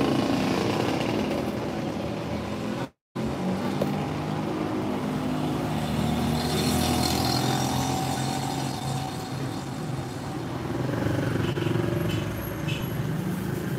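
A road vehicle's engine running steadily, with traffic noise in the background. The sound cuts out completely for a moment about three seconds in.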